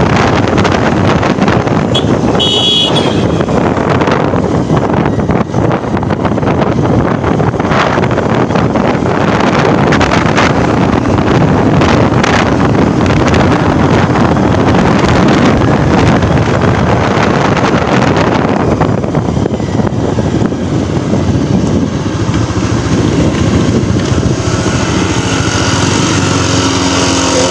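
Motorcycle being ridden on a road, its engine running under heavy wind noise on the microphone, with a brief high beep about two and a half seconds in. Roughly three-quarters of the way through, the wind noise drops away as the bike slows down.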